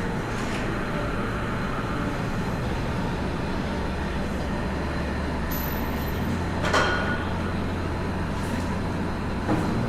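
Steady low mechanical hum, with one sharp, ringing metal clank about seven seconds in and a lighter knock near the end, typical of a tool or steel part being handled.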